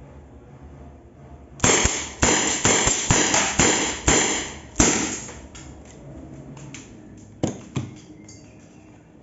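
Rossi 4.5 mm CO2 revolver firing about eight quick shots over roughly three seconds, each a sharp pop with a short ring. Two fainter clicks follow near the end.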